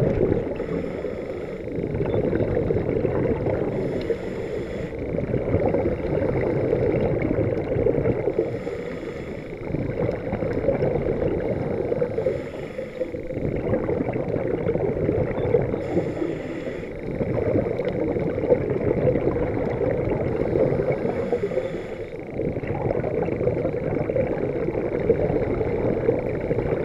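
Underwater scuba breathing through a regulator, heard through the camera's housing: a bubbling rush of exhaled air that swells and fades in slow cycles about every four seconds, with a hiss of inhaled air in between.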